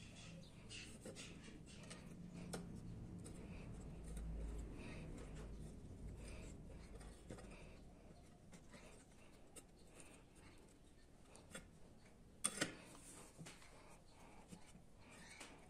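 Faint handling sounds of cord and small wooden parts: soft rubbing and scattered light clicks and taps as the string is threaded and tied on a miniature wooden guillotine. Late on there is a sharper double knock.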